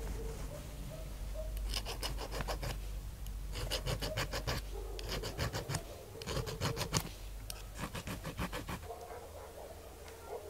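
Metal hand file rasping on the edge of a small brass coin in four quick runs of strokes, several strokes a second, which stop near the end. A steady low hum sits underneath.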